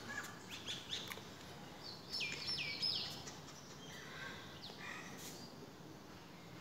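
Small birds chirping, with short high calls and two quick falling whistled notes about two and three seconds in.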